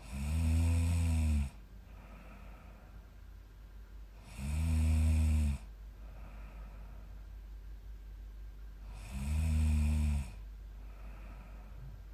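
A 23-year-old woman snoring loudly in her sleep: three low, buzzing snores, each a little over a second long, about four and a half seconds apart, with softer breathing between them.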